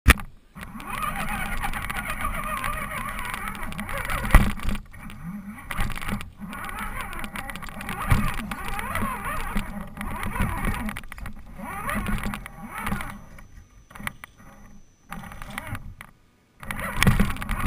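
An RC rock crawler's electric motor and gears whine from close by, the pitch rising and falling with the throttle. Knocks and bumps come through as the truck drives over rough ground, and it stops briefly twice near the end.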